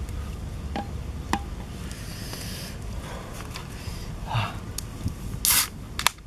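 A can of Coca-Cola being opened near the end: a short fizzing hiss and then a sharp click from the aluminium ring-pull, over a steady low rumble.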